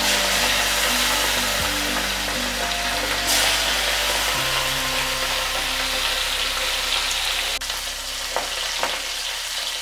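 Chicken wings deep-frying in hot oil in a steel kadai: a steady sizzle of bubbling oil. Near the end a wire skimmer is dipped in to turn the pieces, with a few light taps.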